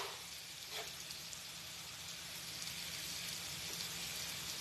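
Onions, peppers and tomatoes sizzling steadily on a hot stovetop griddle, a soft, even hiss.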